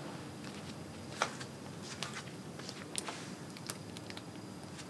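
A few short clicks and taps from the clear plastic ankle strap and metal buckle of a platform high-heel shoe being handled, over a low steady room hum.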